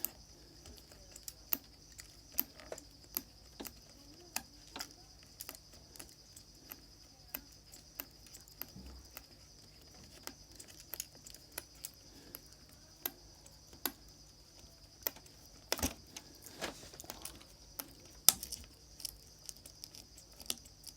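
Scattered small clicks and taps of tools and phone parts being handled while a smartphone is taken apart, irregular and a few seconds apart, with a couple of sharper knocks near the end. A faint steady high hiss lies underneath.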